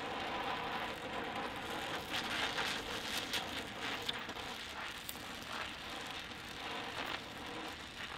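Oxy-fuel welding torch flame hissing steadily on a metal joint, with scattered crackles and snaps as filler rod is dipped into the molten puddle during a root pass.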